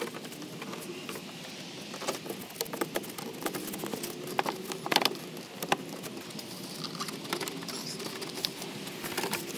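Plastic and rubber clicking and rattling as an engine air intake tube is worked into place by hand: irregular small taps and scrapes, with one sharper click about halfway through.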